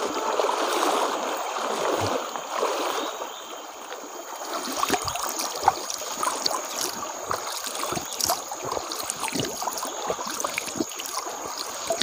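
Shallow stony stream running, with splashing from wading feet in the first few seconds; then water is scooped up by hand and drips back into the stream in many small splashes and trickles.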